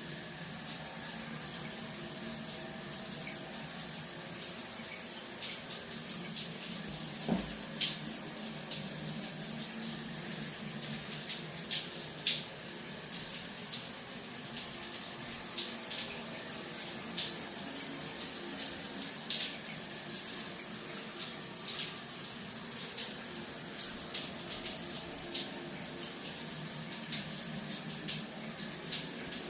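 Fire crackling in a fireplace: a steady hiss with frequent sharp, irregular pops.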